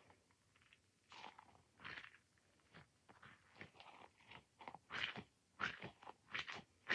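Squishy toy ball squeezed and worked by hand, giving a string of short, irregular squishing noises that get louder in the last two seconds.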